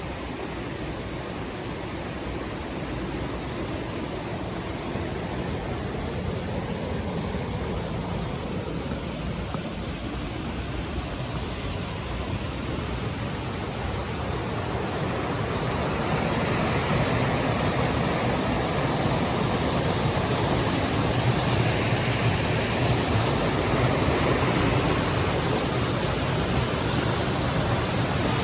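Rushing river water, a steady even roar that grows louder and brighter about halfway through.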